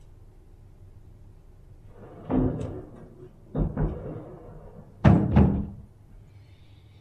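Three loud knocks, each a pair of quick thuds, a little over a second apart; the third is the loudest.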